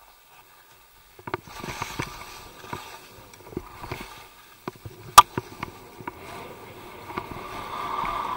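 Skis hissing and scraping through snow, with scattered knocks and clicks and one sharp click a little past halfway. After a near-silent first second, the sound picks up, and a steadier, louder hiss builds toward the end.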